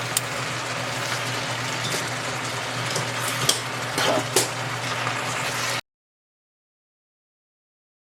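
A pot of liquid boiling on the stove with steady bubbling, and a few sharp clicks and clinks a little over halfway through. The sound cuts off suddenly about six seconds in, leaving dead silence.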